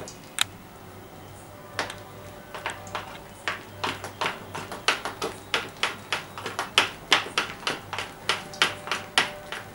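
Thick ground urad dal batter being beaten by hand in a bowl: quick wet slaps, about three a second, settling into a steady rhythm a couple of seconds in. The beating whips air into the batter so the dahi vadas come out soft and spongy.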